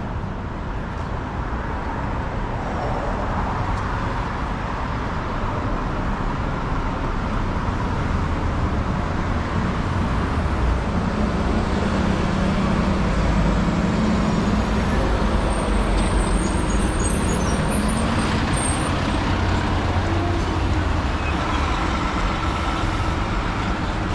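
City street traffic: cars and trucks passing on a wide avenue, a continuous rumble. It builds through the middle, where a vehicle's engine drone stands out, and eases a little near the end.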